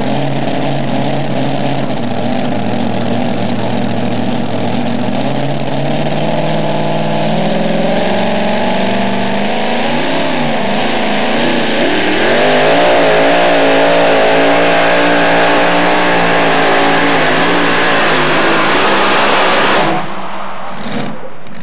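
Two-wheel-drive pulling truck's engine under load through a pull against a weight-transfer sled. The engine note climbs in steps as the truck takes off, wavers about halfway through, then runs at high revs, loudest, for several seconds before cutting off suddenly near the end.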